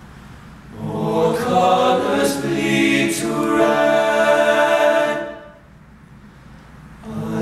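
Seven-voice all-male a cappella group singing chords in close harmony: the voices swell in about a second in, hold for about four seconds and die away, and after a short pause come back in near the end.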